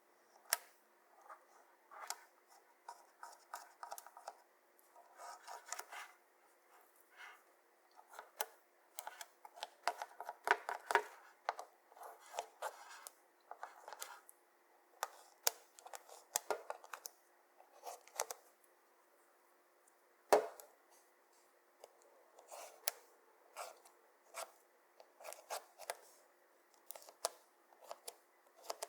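Clear slime being worked by hand: sharp, irregular sticky clicks and crackles that come in clusters, with short pauses between them.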